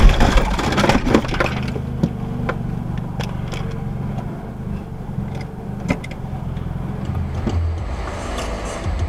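A car collision's crash right at the start, with debris clattering for a second or two. Then the steady low road and engine rumble inside a moving car, broken by a few sharp knocks.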